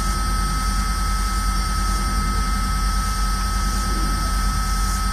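Steady rumbling noise drone with a constant high-pitched tone running through it, unchanging in level and with no beat.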